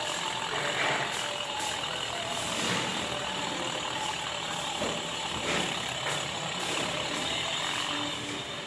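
Small red mini tractor with a rotary tiller running as it drives through shallow muddy water, a steady mechanical noise without pauses.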